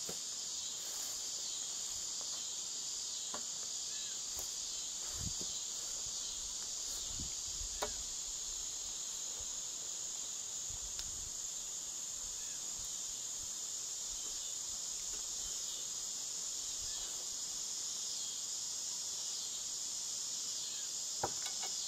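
Steady, high-pitched chorus of insects shrilling without a break. A couple of faint knocks can be heard over it.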